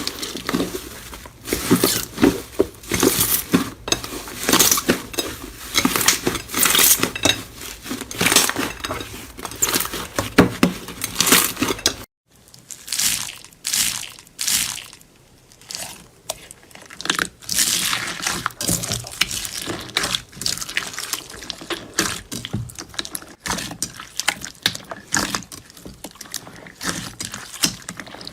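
Slime being squeezed and pressed by hand, giving dense crackling, popping clicks. The sound breaks off abruptly about twelve seconds in and starts again as another clip with sparser clicks.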